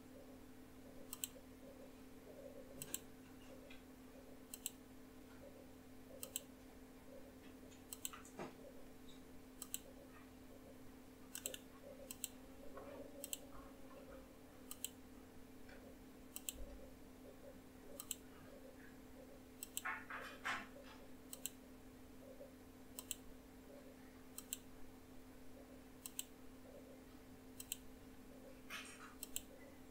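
Faint computer mouse clicks repeating at a steady pace, about one every 1.7 seconds, with a couple of quick double clicks about two-thirds of the way through and near the end, over a low steady hum.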